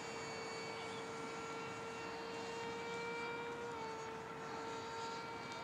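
Electric ducted fan of a 70mm AirField F-16 RC jet whining steadily in flight overhead, its pitch stepping down slightly a little over halfway through.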